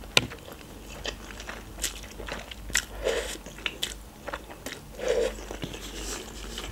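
Close-up eating sounds: instant noodles being slurped from a fork and chewed, with many short mouth clicks.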